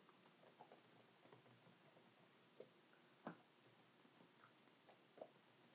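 Faint, sparse keystrokes on a computer keyboard, single clicks at irregular intervals against near silence.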